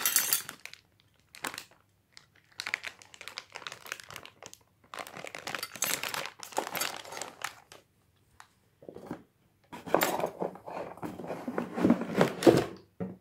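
Clear plastic bags of accessories crinkling and rustling as they are handled, in irregular bursts with short pauses. In the last few seconds, duller knocks and scraping as the cardboard box is handled.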